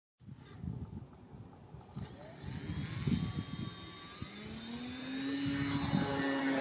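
Radio-controlled model airplane's motor and propeller running up for a take-off from grass. The tone rises over a couple of seconds as it lifts off, then holds steady.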